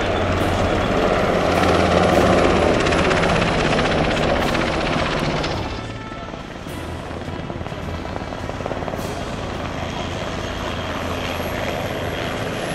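NHIndustries NH90 twin-turbine helicopter flying low, a steady rotor and turbine drone; the sound drops in level about six seconds in and runs on more quietly.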